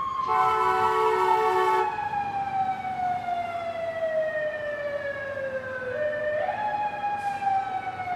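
Fire truck siren in a long, slow falling wail that climbs back up about six seconds in and starts falling again. A fire truck horn blasts once for about a second and a half near the start, over the siren.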